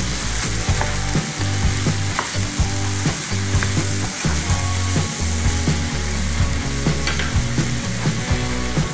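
Minced meat and chopped vegetables sizzling in a nonstick frying pan while being stirred with a wooden spatula, with a few light scrapes and clicks against the pan. A low hum that shifts in pitch runs underneath.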